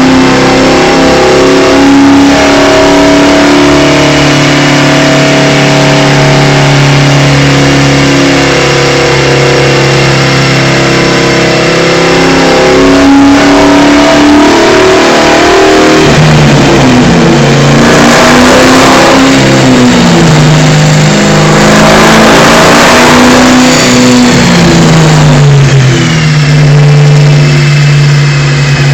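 2003 SVT Cobra's supercharged 4.6-litre V8 running hard on a chassis dyno, very loud. It holds a steady note for the first half. In the second half it turns louder and rougher with a rush of exhaust noise, then drops in pitch as the throttle comes off and settles back to a steady run.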